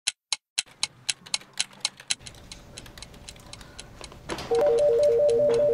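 Clock ticking rapidly, about four ticks a second, loud at first and then fainter under soft background music. About four and a half seconds in, a desk telephone starts ringing with a loud, rapid two-tone electronic trill.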